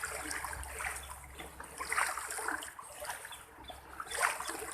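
Floodwater splashing and trickling in irregular spurts.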